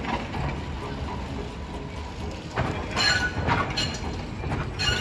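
Hiroshima Electric Railway tram No. 101 running slowly over street track through a curve: a low rumble with a few sharp metallic clacks and brief ringing from the wheels on the rails, about three seconds in and again near the end.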